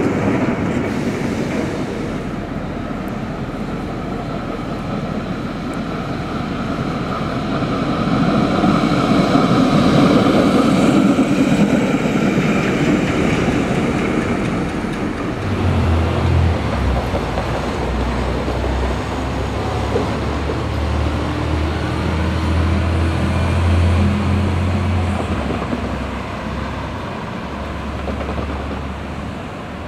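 A streetcar running on city street track: the rumble of its wheels on the rails, mixed with street traffic. About halfway through a steady low hum comes in.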